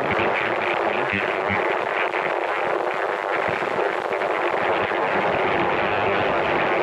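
Vevor 30L ultrasonic cleaner running, its bath cavitating with a steady hiss.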